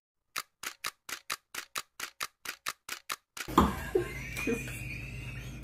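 A quick run of evenly spaced clicks, about five a second, over dead silence, then a man and a woman laughing loudly from a little past halfway.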